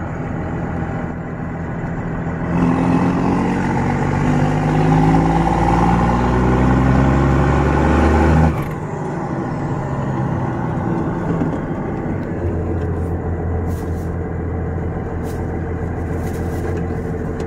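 First-generation Cummins 5.9-litre inline-six turbodiesel pickup heard from inside the cab, pulling hard with the engine pitch rising for about six seconds. The revs cut back suddenly about eight seconds in, and the engine then runs steadily at cruise.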